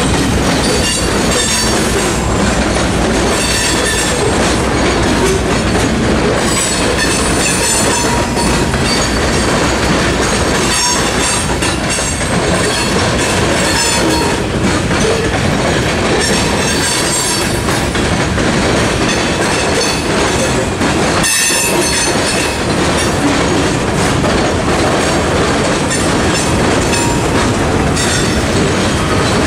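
A long freight train passes over a level crossing, steady and loud. An EMD SD70ACe diesel locomotive goes by at the start, followed by a string of covered hoppers and tank cars rolling past on the rails. The crossing's electronic warning bells ring throughout.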